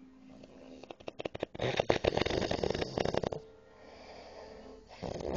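A drunk man snoring heavily in his sleep. A loud, rattling snore lasts about two seconds, followed by a quieter breath, and another snore starts near the end.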